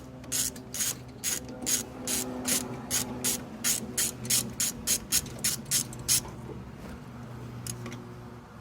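Ratchet wrench clicking steadily, about three clicks a second, as the 13 mm nut holding the distributor bracket is backed off; the clicking stops about six seconds in.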